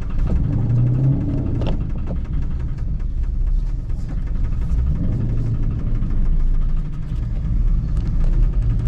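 Car engine running steadily with road rumble, heard from inside the moving vehicle.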